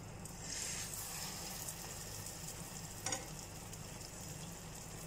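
Bottle gourd and chana dal shami kababs shallow-frying in oil in a non-stick pan, a steady sizzle that grows louder about half a second in as a fresh kabab goes into the oil. A brief tap about three seconds in.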